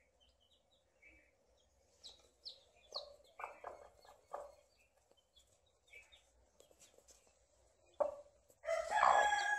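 Domestic hen clucking softly while her chicks peep in short high chirps. Near the end a loud, drawn-out fowl call with a steady pitch sets in.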